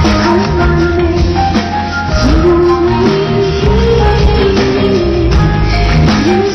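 Live concert music: a held, sliding melody line over a heavy bass and drum groove, with steady shaken percussion.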